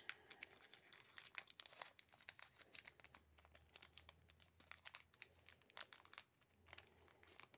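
Faint, irregular crinkling of foil Pokémon booster-pack wrappers as hands handle and open them.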